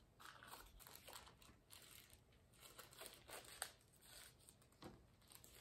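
Faint rustling and light clicks of small packaging being handled as the earbuds' accessory compartment is opened and its contents are taken out.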